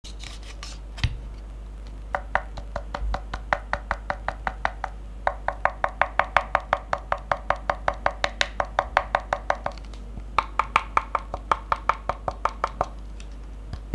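Typing on a Royal Kludge RK68 Pro aluminium-case mechanical keyboard with KTT Strawberry linear switches and SA-profile keycaps: three runs of steady keystrokes, several a second, with short pauses about five and ten seconds in.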